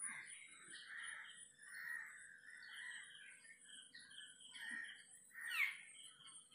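Faint bird calls in the background: a call repeated about once a second, with higher chirps and one call that falls in pitch near the end.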